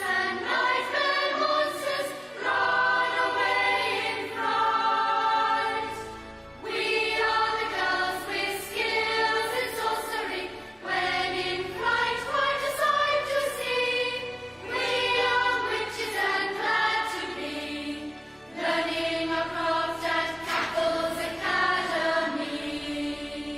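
Closing theme song: a sung melody with instrumental backing, in phrases of a few seconds each with short breaks between them.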